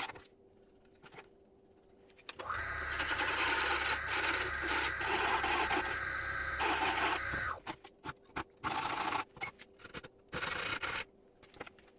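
A small power tool's motor runs steadily for about five seconds, starting a couple of seconds in, followed by a string of short, separate bursts of noise.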